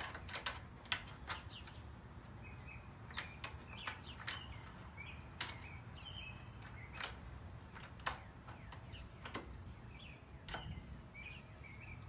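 Scattered metallic clicks and clinks of a socket wrench and bolts being worked by hand on a garden tractor's grille mount, irregular and a second or so apart. Small birds chirp faintly in the background.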